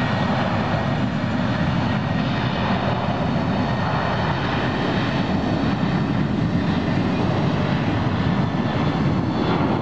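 Twin jet engines of a Boeing 737 at takeoff power during its takeoff roll, a steady, even rush of engine noise.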